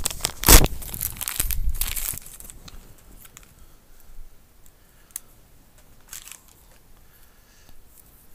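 Plastic packaging crinkling and crackling as a short USB cable is handled and unwrapped, dense for the first two seconds with a sharp loud crackle about half a second in. After that only faint scattered clicks of cable handling.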